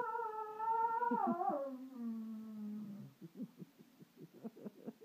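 Pet dog howling ('singing'): one long held note that slides down in pitch about a second in and holds lower, then breaks into a run of short, quick sounds, about four a second.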